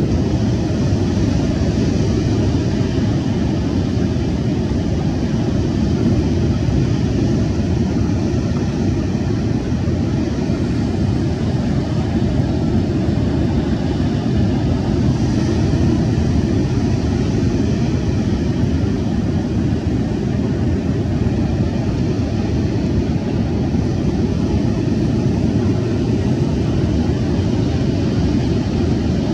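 Steady rushing noise of a fast-flowing river, even and unbroken with a deep low-end roar.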